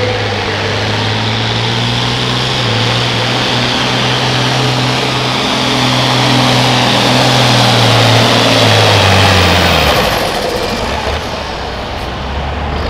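Turbocharged International Harvester diesel pulling tractor running flat out under load as it drags a weight-transfer sled. About ten seconds in, the engine pitch drops and it winds down as the pull ends.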